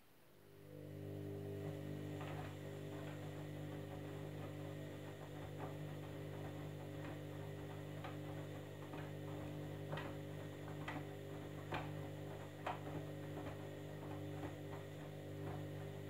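Candy Grand'O Vita washing machine's drum motor starting up just after the start and turning the drum of wet laundry: a steady motor hum with irregular light clicks over it.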